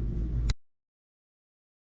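Low rumbling background noise for about half a second ends in a single click, then total silence: the recording cuts off.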